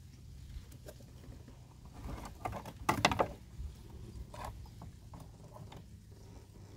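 Wire frame and mesh of a folding crab trap rattling and clicking as it is handled and closed by hand, with a cluster of louder rattles about two to three seconds in and a few lighter ticks after.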